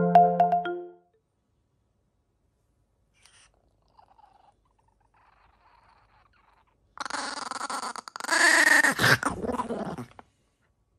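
A small dog growling and grumbling in rough, uneven bursts about seven seconds in, lasting some three seconds with a falling pitch near the end, while it guards a tray of food from a poking finger. A few notes of marimba music fade out at the very start.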